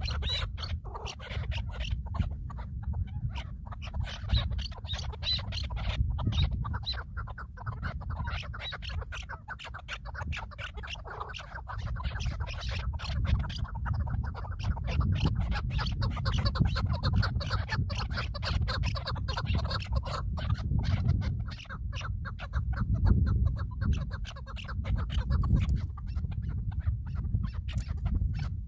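Birds calling and fluttering, with dense irregular rustling and clicking over a steady low rumble on the microphone.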